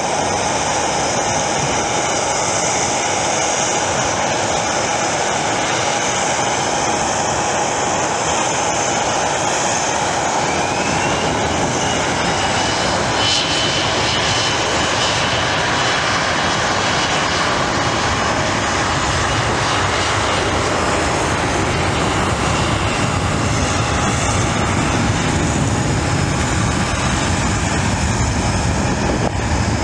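Twin rear-mounted turbofan engines of a Bombardier CRJ regional jet running steadily as it taxis, with a constant high whine over a broad engine rush. About ten seconds in, a whine rises in pitch.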